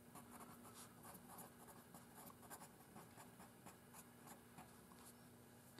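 Pencil writing on paper: faint, irregular scratching strokes as a word is written out by hand.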